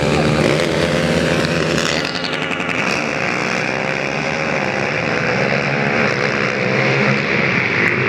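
A pack of racing quads (ATVs) with their engines revving hard together as they pull away from the start, several engine notes overlapping and wavering in pitch.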